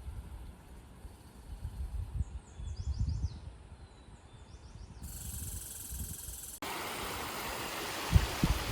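Wind rumbling on the microphone, with faint series of short, high, falling bird chirps in the first half. About two-thirds of the way in it switches abruptly to a steady rushing hiss.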